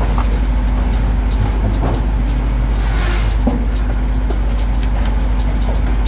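An engine-driven machine running steadily with a constant low hum, light ticking throughout and a short hiss about three seconds in.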